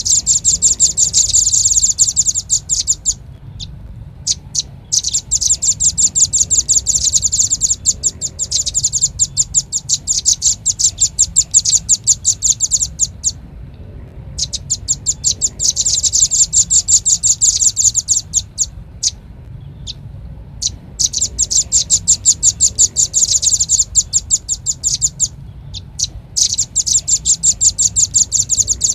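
Velvet-fronted nuthatch (rambatan paruh merah) calling: a fast string of high, sharp chip notes, many a second, in bursts of several seconds broken by short pauses, over a low steady hum. It is a bird-lure recording of the species' call.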